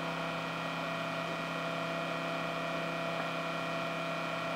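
Small axial cooling fan running steadily at speed: an even hum with several constant tones over airflow hiss.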